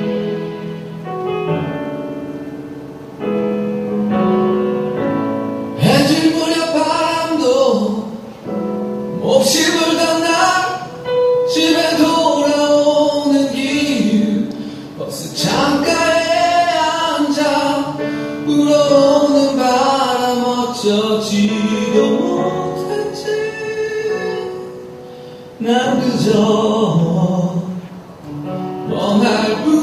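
A song with a singing voice over instrumental backing. The first few seconds are instrumental, with steady held notes. The vocal comes in about six seconds in and goes on in phrases with short pauses.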